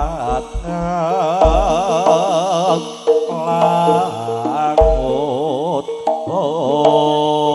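Live jaranan music from a gamelan-style ensemble: a wavering, ornamented melody line over sustained tones, with a few deep drum or gong strokes.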